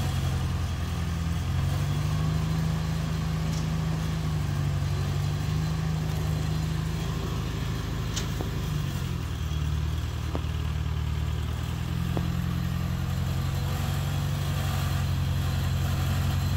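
1950 Farmall Cub's four-cylinder engine running steadily under a light load, driving a Meadows grist mill through a long flat belt. There is a low, even thrum with a faint tick or two.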